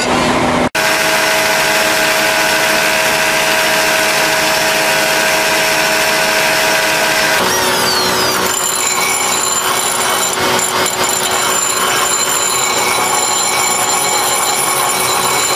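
Air-powered die grinder whining at high speed as its abrasive wheel grinds the steel edge of a tractor finishing-mower blade to sharpen it. The sound changes about seven seconds in, turning rougher and scratchier as the grinding goes on.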